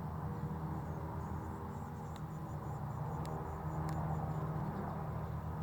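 Distant Boeing 737-800 jet engines on landing approach: a steady low rumble with a hum in it, growing a little louder near the end. Faint high insect-like chirps and a few sharp clicks sit over it.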